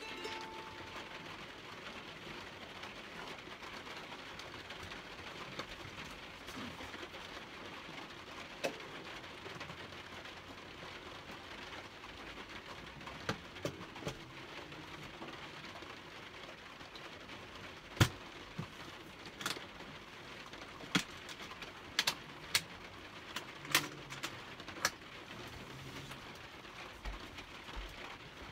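Steady rain falling on a camper van's roof, heard from inside. The last ukulele note fades out at the start, and in the second half there are scattered sharp knocks and clicks, the loudest about eighteen seconds in.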